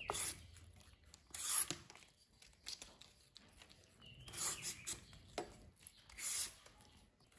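Hand vegetable peeler scraping strips of skin off a squash, about four short rasping strokes a couple of seconds apart, with fainter clicks between them.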